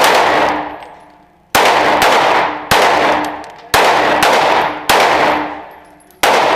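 Glock 19 9 mm pistol firing single shots, about seven in a row at roughly one a second, each report trailing off in a long echo.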